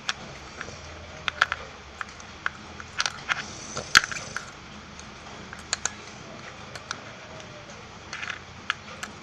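Small clicks and taps from handling a fidget spinner bearing and the things around it, scattered irregularly, with a short cluster of clicks about three to four seconds in.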